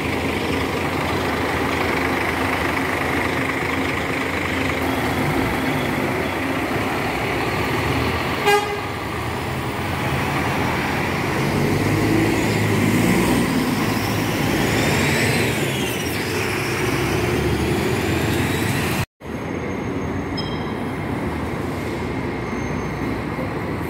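Diesel coach engines running and moving through a bus terminal, with street traffic, the rumble swelling about eleven seconds in. A single sharp knock about eight and a half seconds in, and the sound cuts out for a moment near the end.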